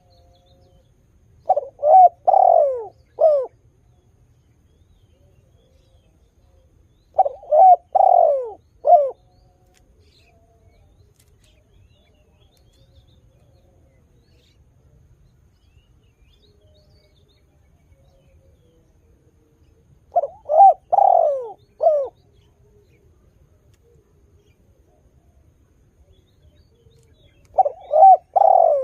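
Spotted dove cooing: four phrases, each a quick run of three or four low coos lasting about two seconds, separated by long pauses.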